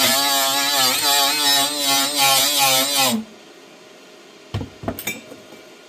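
Handheld power tool running against a piece of steel to clean its surface before welding, its pitch wavering as it is pressed on. It stops about three seconds in, and a few short metal knocks follow about a second and a half later.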